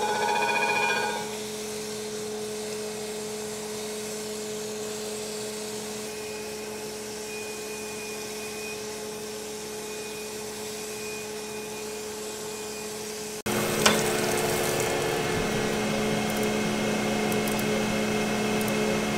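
Crankshaft grinder running with a steady hum, its wheel grinding a rod journal on an L10 Cummins crankshaft for about the first second. About 14 seconds in the hum gets louder and one sharp clack is heard.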